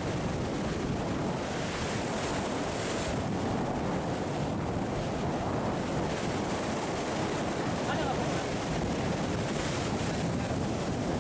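Sea waves washing and breaking against rocks just below, a steady surging wash that swells a little as waves come in, with wind buffeting the microphone.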